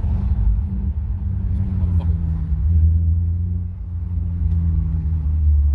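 Infiniti G35's 3.5-litre V6 idling through ISR resonated test pipes: a steady, deep exhaust rumble, with a faint click about two seconds in.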